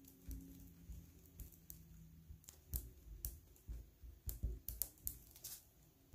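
Faint, scattered small clicks and taps, a dozen or so, thickest about four to five seconds in.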